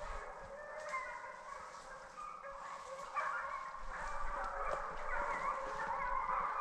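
A pack of hunting hounds baying, many overlapping yelps and bays from several dogs, growing louder from about three seconds in.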